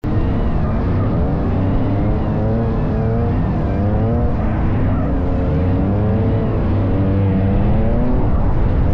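Drift car's engine running close to the hood-mounted microphone, its pitch rising and falling over and over with the throttle.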